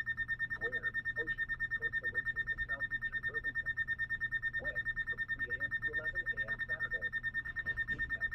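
Weather radio receiver putting out a steady, high-pitched electronic whine that pulses rapidly, with faint muffled voice sounds beneath it.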